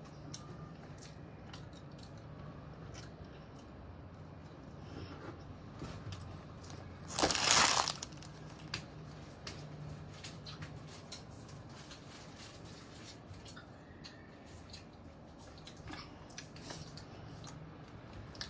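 A child chewing soft bread, with small wet mouth clicks and squishes. About seven seconds in comes one short, loud rushing noise lasting under a second.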